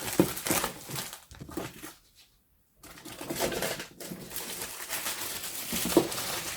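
Cardboard game box and its wrapping being handled: rustling, rubbing and scraping, with a short pause about two seconds in.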